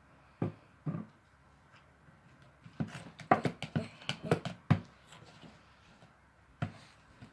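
Slime mixture being stirred in a bowl just after saline solution has been added, giving a run of short sticky clicks and taps. There are two at the start, a quick cluster of them in the middle, and one more near the end.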